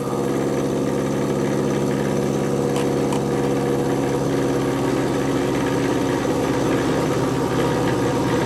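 Small milling machine running with its end mill cutting the corner off a metal plate: a steady machine drone that comes on suddenly at the start and holds level.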